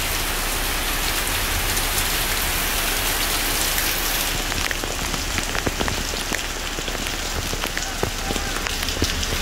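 Heavy rain pouring onto a flooded street: a steady hiss, with sharp taps of nearby drops that come more often from about halfway through.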